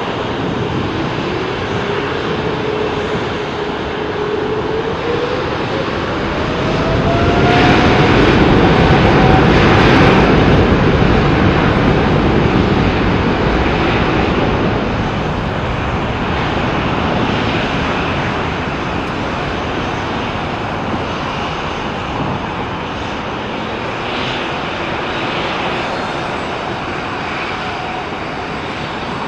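Boeing 777-300ER's GE90 turbofan engines running as the jet taxis. A whine climbs steadily in pitch over the first several seconds, then the engine noise swells to its loudest a few seconds later and eases back to a steady rush.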